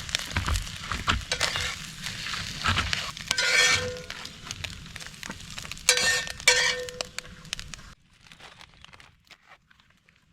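Clinking, knocking and scraping of utensils and dishes, with two brighter ringing rattles about three and a half and six seconds in. The sound drops off sharply about eight seconds in.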